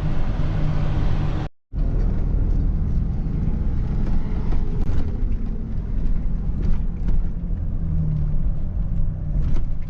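Loaded pickup truck running and rolling at low speed, a steady low rumble of engine and road noise. It cuts out abruptly for a moment about a second and a half in, then carries on unchanged.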